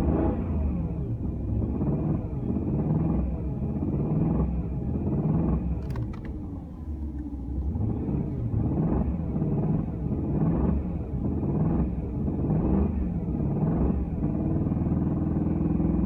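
Engine revved in a quick series of short blips, dipping quieter around the middle, with a sharp click about six seconds in, then settling to a steady idle near the end. The noise under test is a suspected rod bearing knock after new VAC rod bearings were fitted.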